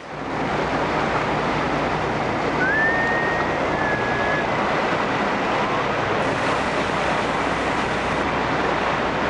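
A Cabo 45 Express sport-fishing boat's diesel engines running under way: a steady low hum under loud rushing wind and water noise. A brief high whistle sounds about three seconds in.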